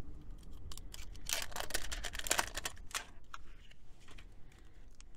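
AA batteries clicking and clattering against each other and the trail camera's plastic battery compartment as they are handled, in a quick run of sharp clicks for a couple of seconds, about a second in.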